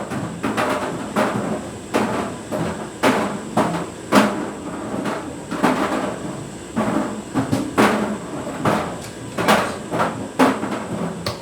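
A Prime energy drink tumbling in a running tumble dryer drum, knocking against the drum irregularly about once or twice a second over the steady running of the dryer.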